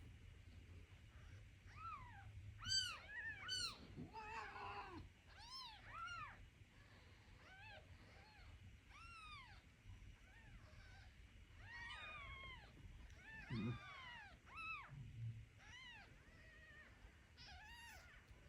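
Young kittens mewing over and over in short, high-pitched calls that rise and fall, with one lower, longer cat call about four seconds in.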